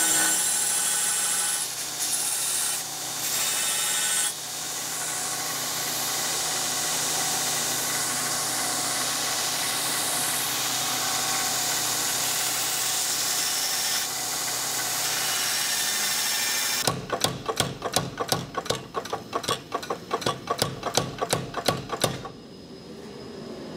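Belt grinder grinding a forged steel chopper blade: a steady loud grinding noise that dips briefly a few times as the blade is lifted off the belt. Near the end it gives way to a power hammer striking hot steel with light, even blows, about three a second, which set and blend a fuller in the blade, followed by a quieter steady hum.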